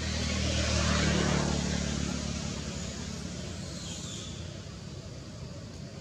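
A motor vehicle passing by: its hum and road noise swell to a peak about a second in, then fade away over the next two seconds.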